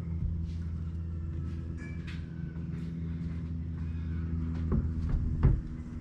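Rubber bumper weight plate set down on a solar panel lying on a car hood: two dull knocks late on, the second the louder, over a steady low hum.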